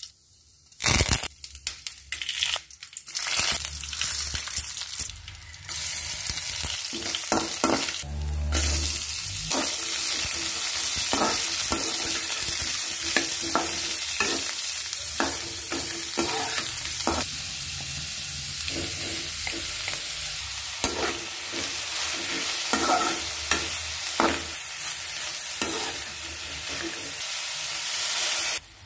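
Chopped green beans sizzling in hot oil in a pan, with a steady hiss, while a spatula stirs them and knocks and scrapes against the pan many times. There are a few louder knocks in the first few seconds.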